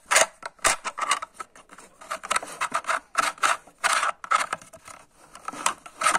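Hard plastic toy playset pieces being handled, giving a rapid, irregular run of clicks and scrapes.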